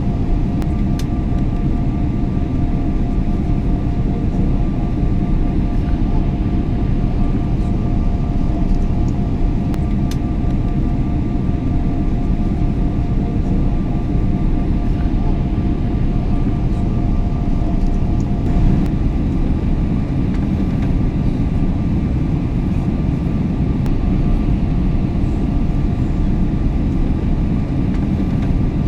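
Airliner cabin noise in cruise: a steady low rumbling roar of engines and airflow, with a faint steady hum of two tones above it.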